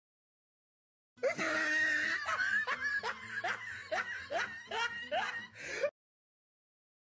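Laughter: a run of quick ha-ha pulses that starts about a second in and cuts off suddenly about six seconds in, with dead silence on either side.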